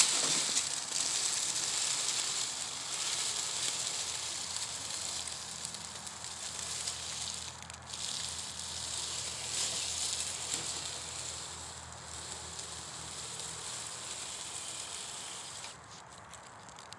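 Dry leaf litter crackling and rustling under the tyres of a Traxxas TRX-4 Bronco RC crawler as it drives through, with a faint low hum of its motor and gears underneath. The crackling drops off about a second before the end.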